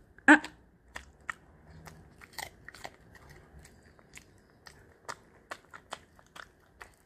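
A toy poodle chewing a bite of hand-fed food: one sharp snap of the jaws just after the start, then irregular mouth clicks and smacks as it chews and licks.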